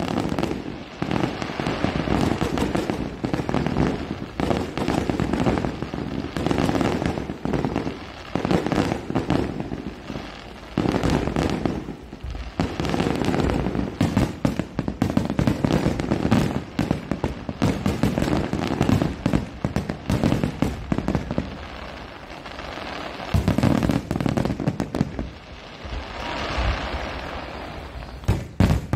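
Star mine fireworks: a rapid-fire barrage of aerial shell bursts, booming and crackling almost without pause, with two brief lulls.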